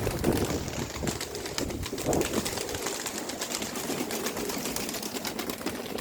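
Domestic pigeons cooing over the steady rush of a strong wind, with low coos near the start and again about two seconds in.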